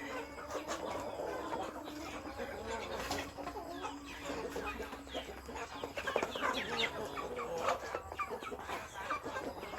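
A flock of chickens clucking, many overlapping short calls that get busier in the second half.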